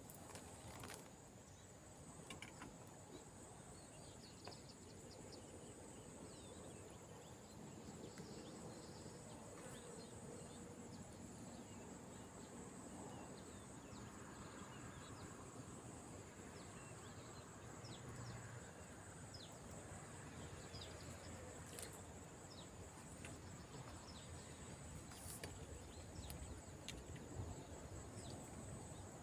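Insects droning steadily at a high pitch over faint outdoor background noise, with a few small clicks.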